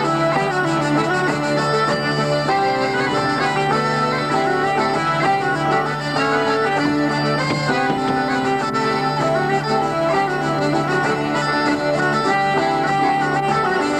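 Hurdy-gurdy, button accordion and bagpipes playing a traditional dance tune together over a continuous low drone.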